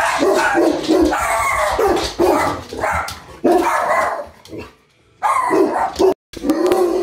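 Tibetan Mastiff barking loudly and repeatedly: about eight drawn-out barks in a row, with a short break a little after halfway.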